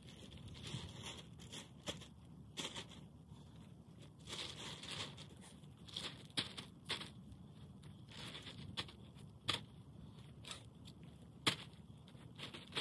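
Black plastic garden tarp crinkling and rustling in irregular spurts, with a few sharp clicks.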